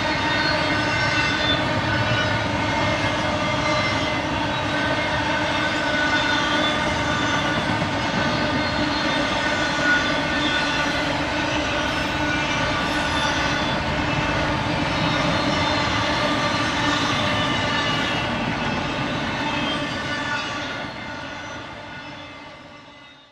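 Double-stack intermodal train's well cars rolling past on the rails, a continuous rumble and clatter with a steady ringing of several tones over it. The sound fades away over the last few seconds.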